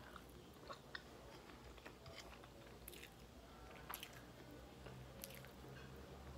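Faint chewing and lip smacking of a person eating chicken and rice with her fingers, with a few small sharp mouth clicks.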